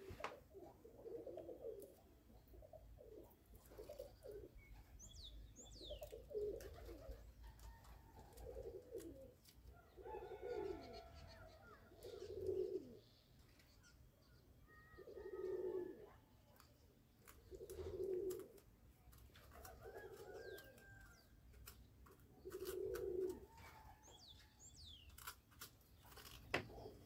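A dove cooing over and over, short low coos every two to three seconds, with a few high chirps from small birds and scattered light clicks.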